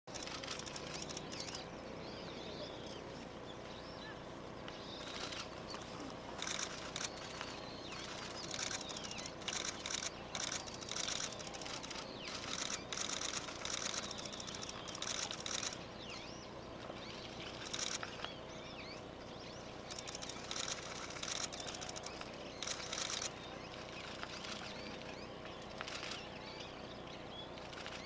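Small birds calling: short chirps and irregular bursts of high, rapid twittering come and go every second or two, over a faint steady hum.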